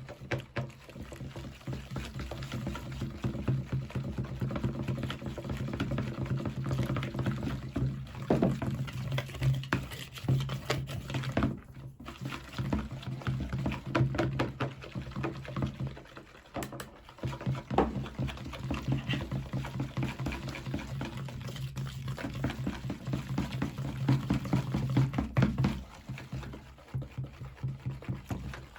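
Pancake batter being mixed in a bowl: a fast, continuous wet tapping and sloshing, with a few brief pauses.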